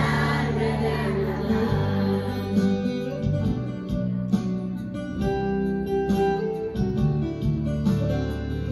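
A Christmas carol with children's voices singing over strummed acoustic guitar.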